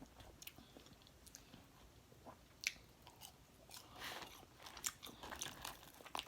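A person chewing food at close range: faint, scattered wet mouth clicks and smacks, with a sharper click a little under three seconds in.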